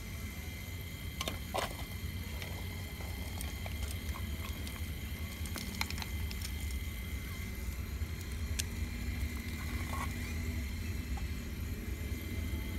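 Bucket of an RC model Caterpillar 349 excavator digging shale, with scattered sharp clicks and clinks of loose rock pieces over a steady low hum and a faint high steady tone.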